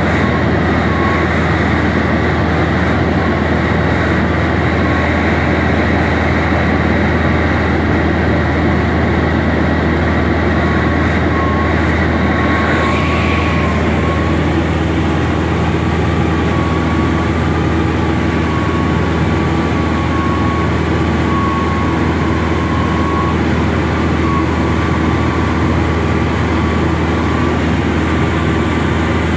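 Light aircraft's engine and propeller droning steadily, heard from inside the cabin, with a deep hum and a thin whine that wavers slightly in pitch.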